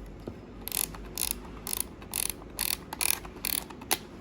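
Disposable camera's thumbwheel film advance being turned in short ratcheting strokes, about eight of them at roughly two a second, winding the film on to the next frame.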